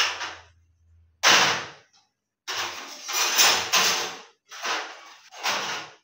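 Kitchenware being handled on a counter: a string of knocks and clatters of a bowl and dishes being picked up and set down, about six separate bumps. A low hum underneath stops about a second in.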